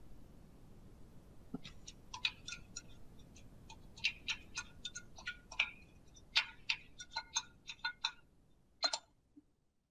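Spoon scraping and tapping glue out of a measuring cup into a stainless steel mixing bowl: a run of irregular light clicks and taps, some with a faint metallic ring, stopping near the end.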